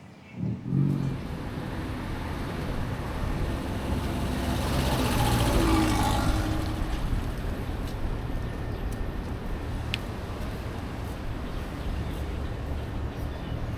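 City street traffic: a motor vehicle passes, loudest about five to six seconds in, over a steady hum of road noise.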